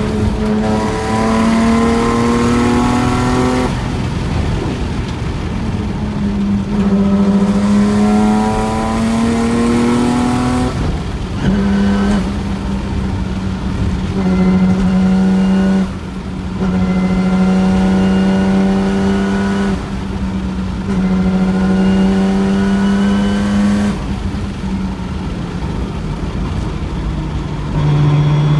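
Nissan Skyline's twin-turbo RB26DETT straight-six, breathing through an active silencer exhaust, accelerating hard through the gears. The engine note climbs in two long pulls, each ending in a drop in pitch at the upshift. It then holds a steady high pitch with brief lifts off the throttle and settles lower near the end.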